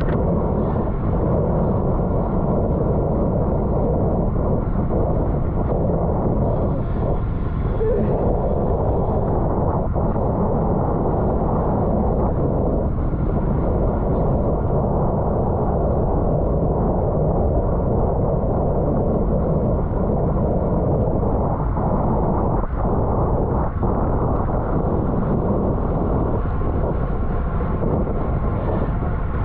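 Steady, loud wind noise on the microphone of a camera riding on a racing bicycle at speed.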